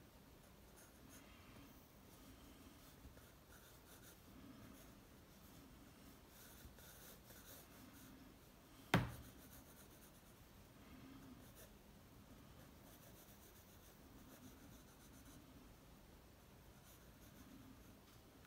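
Staedtler Mars ergosoft graphite pencil scratching faintly on paper in light, stop-start sketching strokes, with one sharp click about nine seconds in.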